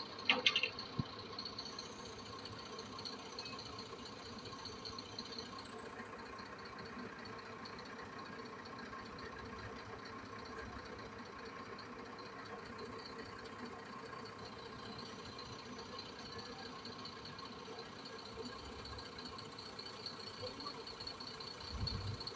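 A small engine-driven machine running steadily, at one even pitch throughout, with a brief sharp sound just after the start.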